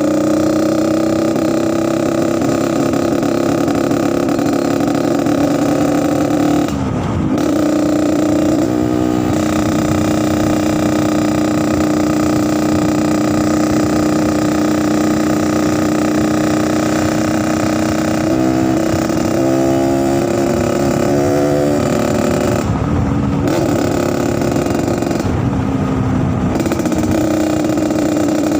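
Yamaha RX-King two-stroke single-cylinder motorcycle engine idling with a rough 'ngorok' (snoring) sound, with a few brief throttle blips about a quarter of the way in and several more in the last third.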